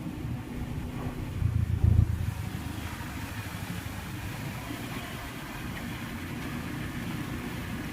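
Motor vehicle engine running, swelling louder briefly about a second and a half in, followed by a steady hiss.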